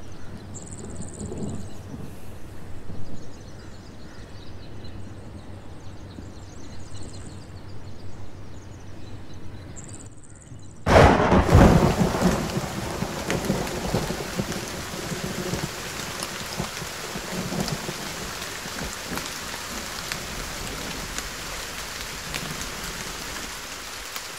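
Quiet ambience with a few short high chirps, then about eleven seconds in a sudden loud clap of thunder rumbles and heavy rain sets in, hissing steadily.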